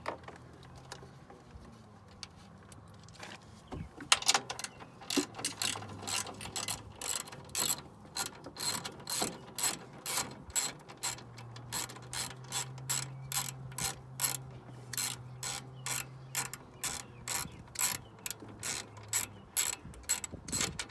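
Hand socket ratchet clicking in a long, regular run of strokes, starting about four seconds in, as it loosens the top-mount nuts of a Toyota Tacoma's front coilover strut.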